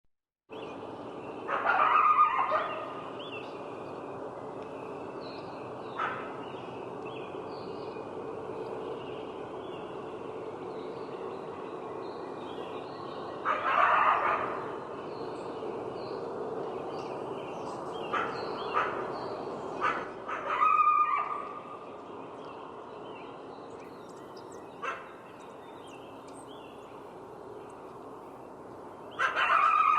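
Coyote barking in short bouts of sharp barks: one bout near the start, one around the middle, a run of several calls a little after that, and a last bout at the end, with lone barks in between. A steady background hiss runs underneath.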